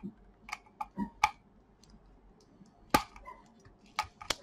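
Small sharp clicks and taps of a precision screwdriver working the screws of a laptop's hard-drive caddy: a few light ticks in the first second and a half, the loudest click about three seconds in, and two more near the end.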